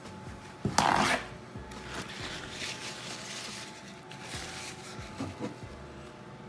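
A cloth wet with denatured alcohol rubbing over a sheet of leatherette patches to clean them, starting with a short louder scuff about a second in, then softer rubbing.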